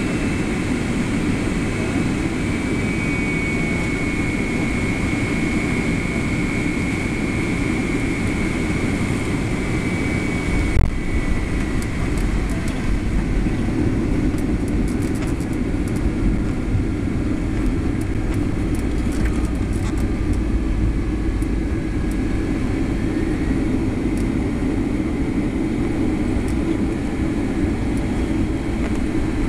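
Inside the cabin of a Boeing 757-200 landing: a steady rush of engines and airflow with a faint high whine, then a thump about eleven seconds in as the wheels touch down, followed by the rumble and rattling of the rollout along the runway.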